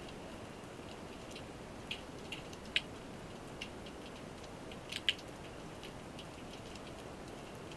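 Underwater ambience: a steady faint hiss with scattered sharp clicks and crackles, a few louder ones about three and five seconds in.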